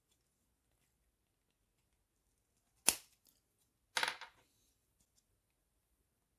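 Small hard objects clicking and clattering: one sharp click about three seconds in, then a short rattle a second later and a few faint ticks.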